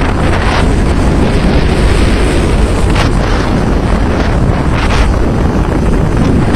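Strong wind buffeting the microphone over the rush of rough sea along a ship's hull, with hissing surges of breaking water at the start, about three seconds in and about five seconds in.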